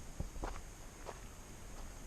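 Faint steady outdoor background with a few light, scattered clicks and taps.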